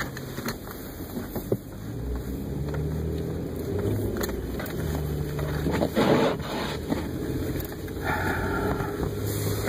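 Car engine running and tyre and road noise while driving through snow, the engine hum rising and falling, with a few light knocks and a short louder rushing noise about six seconds in.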